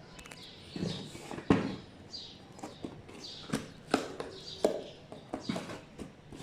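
Fan box and packaging being handled and opened by hand: irregular knocks and clicks with bits of rustling, the loudest knock about a second and a half in.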